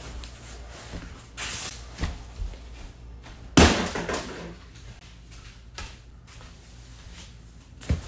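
A buzzing water machine being given one hard whack by hand to stop it buzzing: a single loud slam about three and a half seconds in. Softer knocks and shuffling come before it, and a handling bump comes near the end.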